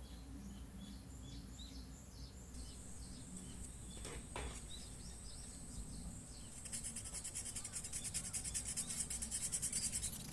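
Small birds chirping, a run of short, quick, falling calls, over a low steady hum. About seven seconds in, a louder, rapid, rhythmic scratching of about five strokes a second takes over.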